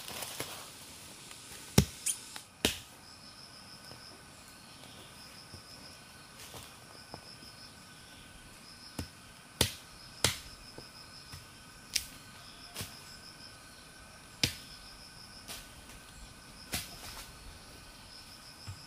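Sharp knocks or clicks, about ten at irregular intervals, the loudest about two seconds in. Behind them, insects chirp in short repeated trills.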